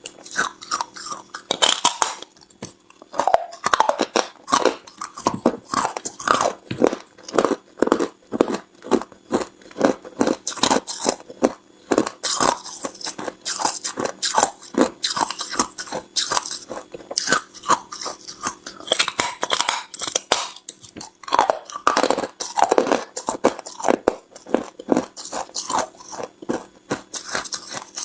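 Close-miked biting and chewing of hard ice, a dense run of sharp crunches and cracks as the ice is crushed between the teeth.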